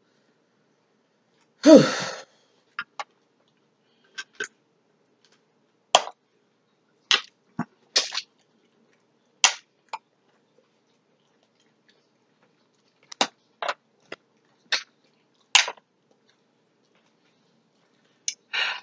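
Eating sounds: about a dozen short, sharp clicks and cracks at irregular intervals as shellfish and a foil pan are handled, with a brief vocal sound about two seconds in.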